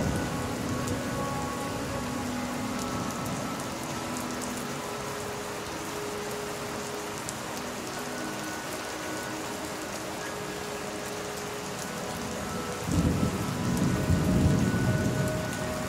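Steady rain falling hard. A low roll of thunder swells about thirteen seconds in and dies away near the end.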